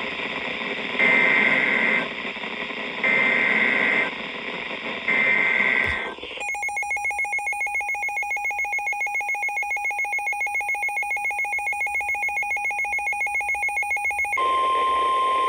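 Emergency Alert System SAME header: three one-second bursts of warbling two-pitch data tones, a second apart, over hiss. Then a fast, pulsing electronic alert beep for about eight seconds. Near the end a steady single-pitch attention tone begins, which signals that a warning message follows.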